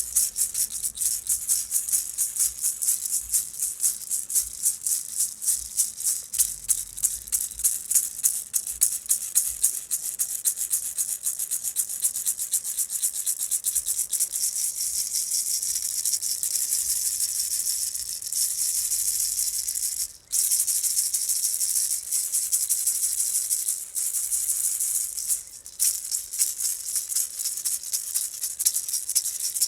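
Hand rattle shaken rhythmically in quick, steady strokes, blurring into continuous shaking in the middle, with a brief stop about twenty seconds in.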